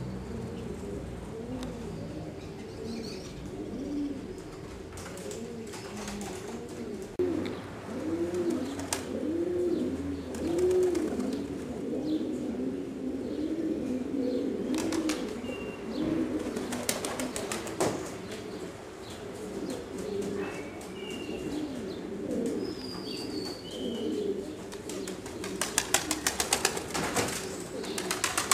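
Male Jiennense pouter pigeons cooing, several at once, in repeated rising-and-falling calls. Wing flaps break in now and then, with a fast clatter of wings near the end.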